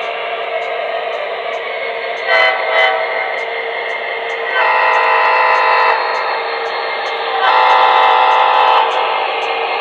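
Onboard sound system of an MTH HO-scale SD70ACE diesel locomotive model, playing a steady diesel idle with three horn blasts over it: a short one about two seconds in, then two longer ones later on.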